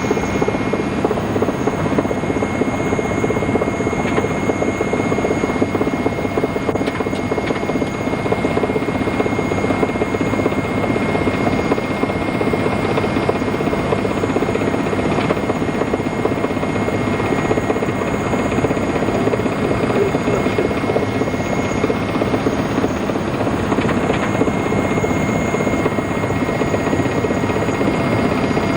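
Helicopter turbine and rotor noise, a loud, steady drone with a constant whine, heard from inside the cabin in flight.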